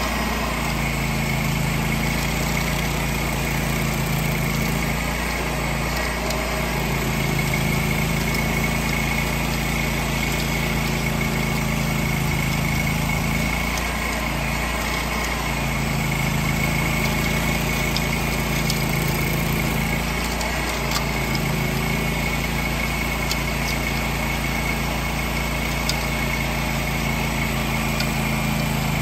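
Vermeer SC30TX hydraulic stump grinder running steadily under load as its cutter wheel grinds an apple tree stump into chips. A steady high whine rides over the engine, with scattered ticks of chips.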